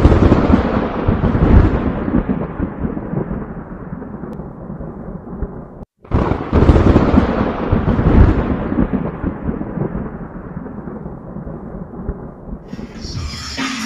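Two peals of thunder from a storm sound effect, each cracking in suddenly and rolling away over about six seconds, with a short gap between them. Music begins near the end.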